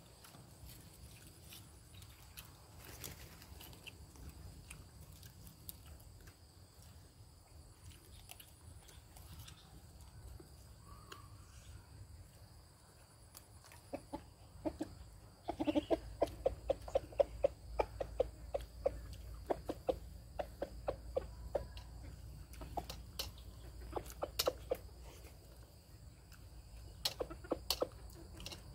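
A chicken clucking, a run of short, quickly repeated clucks starting about halfway through, over faint clicks of hand-eating and a low rumble.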